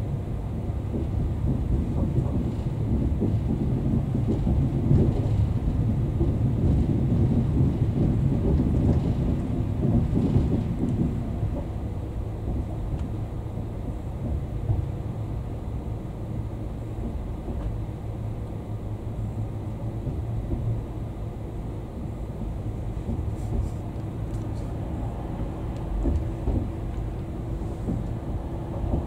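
Low rumble of a Class 390 Pendolino electric train running on the rails, heard inside the passenger coach. It is louder over roughly the first ten seconds, then settles to a steadier, quieter run.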